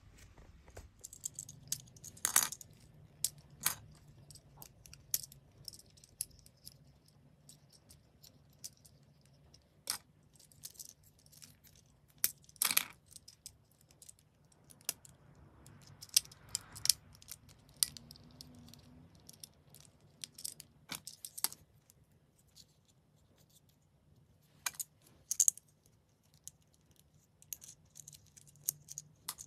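Irregular plastic clicks and snaps as the parts of an ambulance transforming robot toy are folded and clicked into place by hand, a few snaps much louder than the rest, over a faint steady low hum.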